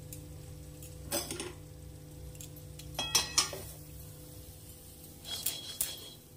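Roasted peanuts rattling and sliding in a metal kadai as the pan is handled, in three short bouts of metallic clinking and scraping about a second, three seconds and five and a half seconds in. A steady low hum runs underneath.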